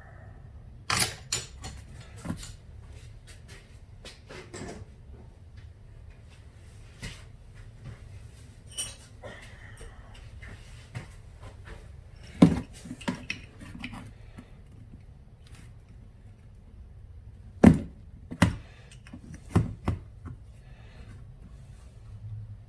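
Small metal parts and tools clicking and clinking against a workbench as a mower carburetor is taken apart, in scattered knocks with the loudest about twelve and eighteen seconds in, over a low steady hum.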